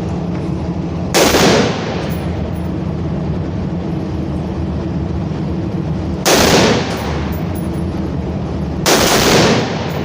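Three gunshots, a few seconds apart, each with a short ringing echo, over a steady low background rumble.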